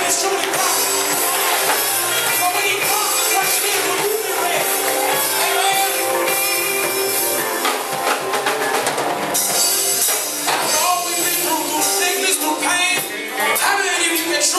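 Live gospel music: a choir singing with band accompaniment and drums.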